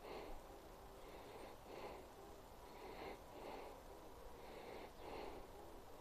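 Faint, soft breathing in an irregular rhythm, a puff roughly every half second to second.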